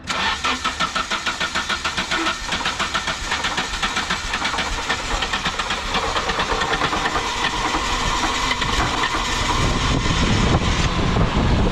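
Nissan 240SX's KA24E 2.4-litre four-cylinder engine being cranked on the starter with an even, pulsing rhythm. After several seconds it catches and runs, growing steadier and louder, on its first start after an alternator replacement. It runs rougher than usual.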